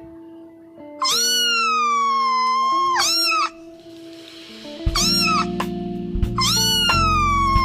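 Domestic cat meowing: a long drawn-out meow about a second in, a short meow right after it, another short one around five seconds in, and a long meow starting near the end. Background music runs underneath, with a fuller low part coming in about five seconds in.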